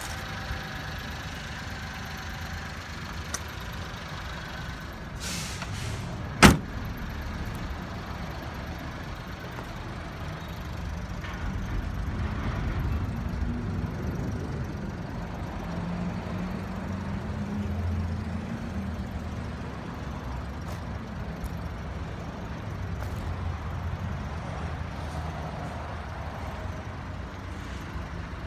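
Mitsubishi Minicab kei truck's small 660 cc three-cylinder engine idling steadily, with a door slammed shut once about six seconds in, the loudest sound.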